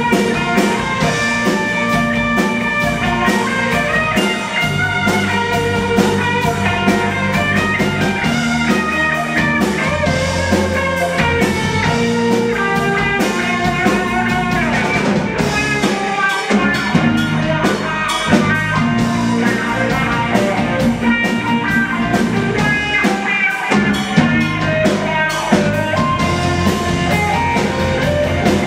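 Live rock band playing: electric guitars and a drum kit with a steady beat.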